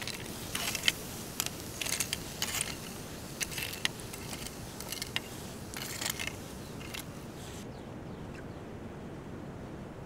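Metal tongs clinking and scraping as lumps of hot charcoal are set on the rock under a cast-iron Dutch oven: a run of irregular clicks and scrapes that stops about two-thirds of the way through, over a steady background hiss.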